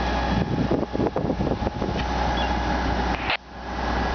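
Fire engine's diesel engine running steadily at pumping speed, with the hiss of its deck-gun water stream over a low, even hum. The sound cuts off abruptly about three seconds in.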